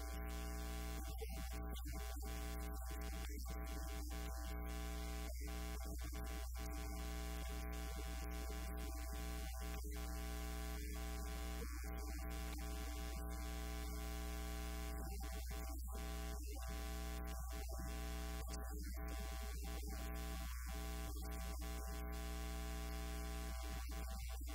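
Steady electrical mains hum and buzz with many overtones from a faulty sound feed, drowning out the room. The upper part of the buzz cuts out briefly over and over.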